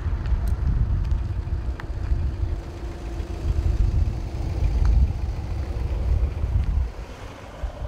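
Wind buffeting the microphone: a gusty low rumble, with a faint steady drone underneath.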